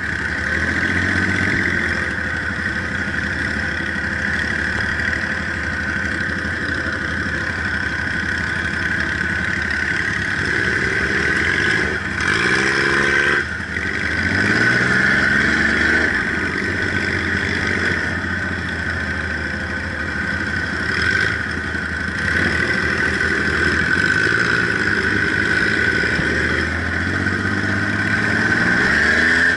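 Dune buggy engine running while driving on a rough dirt road, rising in pitch as it revs up a few times, with a steady high-pitched hum underneath.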